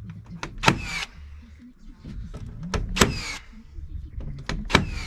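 Nails being driven into wooden siding boards: three loud, sharp strikes about two seconds apart, each with a ringing tail and some lighter knocks just before it.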